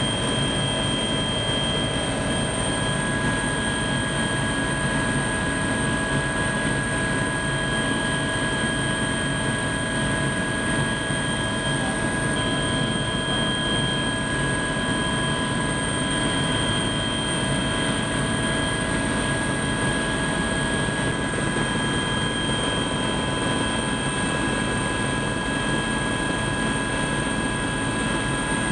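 Helicopter in flight, heard from inside its cabin: the engine and rotors make a steady, unchanging noise with several constant high whining tones over it.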